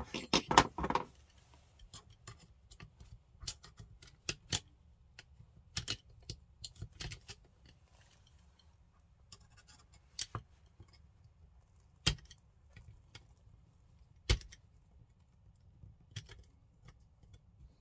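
Scattered small clicks and taps of a pin punch, a screwdriver and the parts of an airsoft rifle's lower receiver being handled, with a cluster of knocks in the first second and two sharper clicks in the second half.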